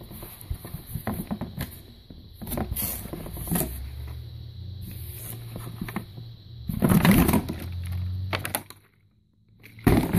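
Tissue paper and plastic wrapping rustling and crinkling as hands dig through a cardboard box, with irregular crackles and knocks against the box; it cuts out briefly near the end.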